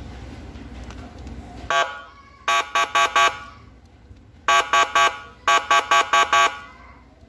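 A pitched, horn-like electronic tone beeping in short rapid bursts: one beep about two seconds in, then quick runs of several beeps in three groups.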